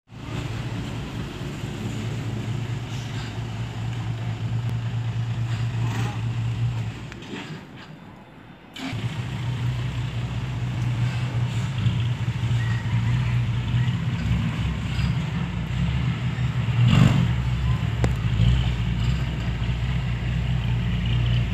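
Diesel engine of a loaded six-wheel dump truck running at low revs as it manoeuvres and reverses, a steady low drone. The sound fades away briefly about a third of the way in, then returns abruptly. A single sharp clunk sounds about three-quarters of the way through.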